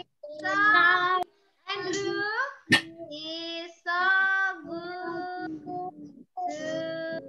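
A woman and young children singing a children's song together over a video call, in short sung phrases broken by abrupt silences. A single sharp click cuts in about a third of the way through.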